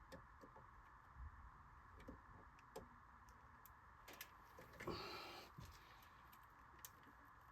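Near silence: a faint steady hum with scattered small clicks, and a brief soft rustle about five seconds in.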